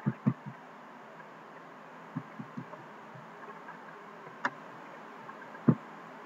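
Irregular soft low knocks, a few close together near the start and around two seconds in, the loudest about five and a half seconds in, with one sharper click about four and a half seconds in, over a steady hiss.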